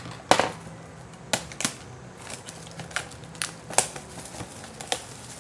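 A sealed trading-card box being handled and opened: a string of sharp, irregular snaps and clicks from the packaging, the loudest about a third of a second in and again just before four seconds.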